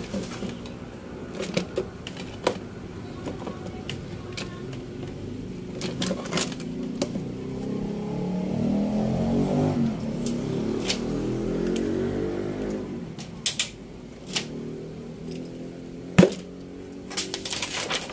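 Irregular clicks, taps and plastic snaps from handling an LED TV's backlight assembly by hand and with a screwdriver, as the reflector and diffuser sheets are worked loose; the sharpest snap comes about 16 seconds in. A low droning hum swells up through the middle and fades again.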